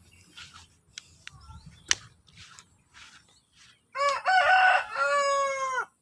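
A rooster crowing once: a loud call of nearly two seconds beginning about four seconds in, falling in pitch at the end. Before it come faint scattered clicks and one sharp click about two seconds in.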